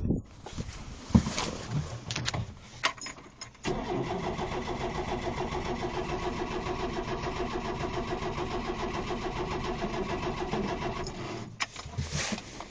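Renault 4L's carburetted four-cylinder petrol engine starting cold and idling steadily for several seconds, then dying away near the end. It runs when cold but needs a little choke left on.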